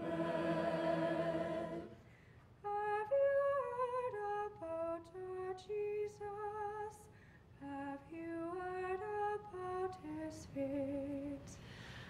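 High school chamber choir holding a sung chord a cappella, which ends about two seconds in. After a short pause a single girl's voice sings a slow, lullaby-like melody alone, note by note with brief breaks between phrases.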